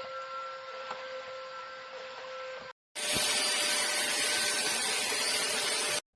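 Philips ST6101 cordless vacuum cleaner's motor running with a steady whine, in two takes. The second, after a brief cut, is louder and brighter and stops abruptly.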